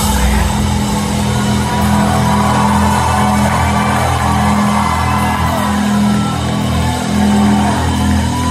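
Live metal band playing through a concert hall's PA: held, pulsing low bass notes with a melodic line above, in a large room.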